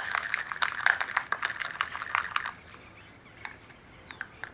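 Slime mixture being beaten in a bowl with a utensil: quick, wet clicking, several strokes a second, as the mixture stiffens. The beating stops about two and a half seconds in, leaving a few faint clicks.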